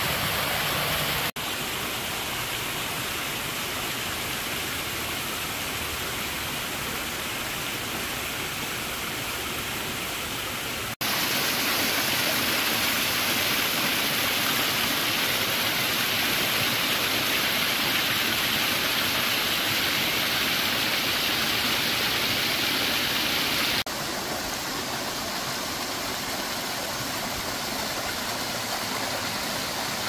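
A small mountain stream rushing and splashing as it cascades over granite boulders in a steady wash of water noise. It cuts abruptly between louder and softer stretches three times as the view changes from one cascade to another.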